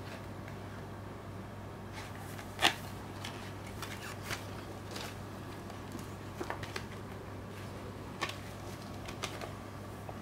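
Blu-ray packaging being handled: cardboard slipcase, paper cover sheet and plastic disc case giving light rustles and scattered clicks and taps, the sharpest click about two and a half seconds in, over a steady low background hum.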